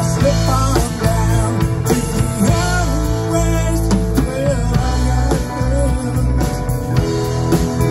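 Live rock band playing loud: electric guitar over a drum kit.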